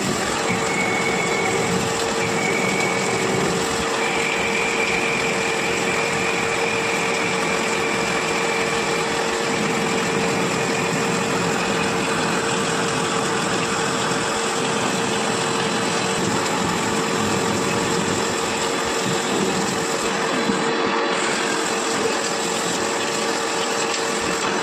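CNC lathe running while turning steel: a continuous machining noise with a steady whine. A higher whine starts and stops several times in the first few seconds, then holds steady.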